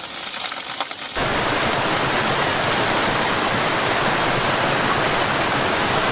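Water from a borehole jetting onto rock, splattering with a crackle of drops; about a second in, this gives way to the steady full rush of a waterfall.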